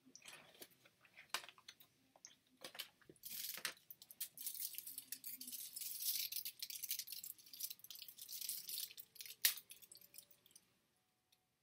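Toblerone packaging, the cardboard box and foil wrapper, crinkling and crackling as it is opened and unwrapped by hand, with a sharp snap about nine and a half seconds in.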